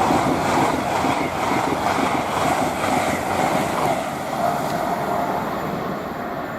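Express passenger train passing through the station at high speed: a loud, dense rushing of wheels on rail with some clatter, slowly dying away.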